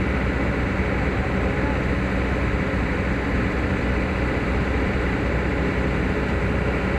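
Heavy diesel engine running steadily at an even speed, a constant low hum.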